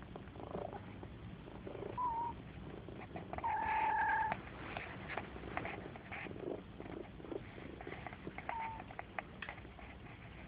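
Mother cat purring steadily with her kittens, broken by a few short high kitten mews, the longest and loudest about four seconds in. Faint small clicks are scattered throughout.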